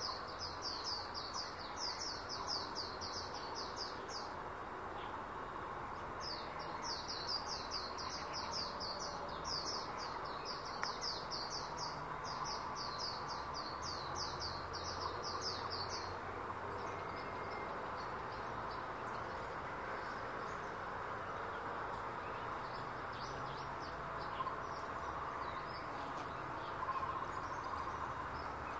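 Forest insects and birds: a steady high-pitched insect drone, with long runs of quick, high, falling chirps about five or six a second during the first half, fading to faint ones later.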